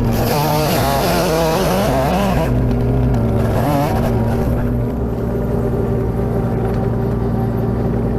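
Engine running steadily at a low, even speed. It carries a wavering higher whine and hiss for the first couple of seconds, and again briefly about halfway through.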